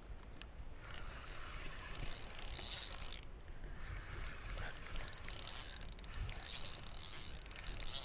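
Fishing reel being cranked in bursts while fighting a hooked fish, its whirring heard about two seconds in and again from about five seconds in.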